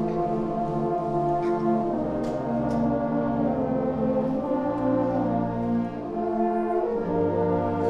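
Middle school honor concert band playing held chords, brass to the fore, moving to a new chord every couple of seconds.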